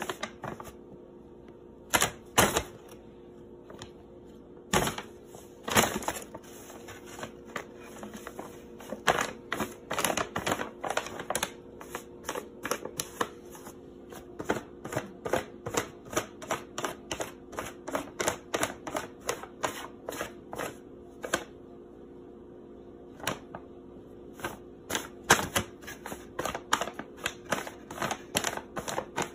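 Brown paper bag crinkling and crackling as cats tread, paw and shift inside it: irregular sharp crackles coming in dense runs with quieter gaps, over a faint steady hum.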